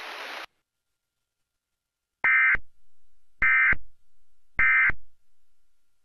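Emergency Alert System end-of-message tones: three short bursts of SAME digital data about a second apart, which mark the end of the alert. Before them a background hiss cuts off about half a second in.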